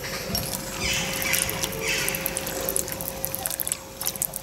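A spoon stirring cabbage soup (shchi) in a slow cooker's ceramic pot: the liquid sloshes and splashes, with many light clicks of the spoon.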